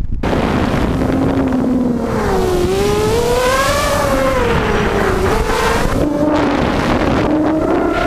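Hexacopter's six Tiger MN1806 2300kv brushless motors with GemFan 5x3 two-blade props whining at high throttle. Their pitch rises and falls as the craft manoeuvres, with heavy wind rush on the GoPro's microphone. The motor noise jumps up abruptly just after the start.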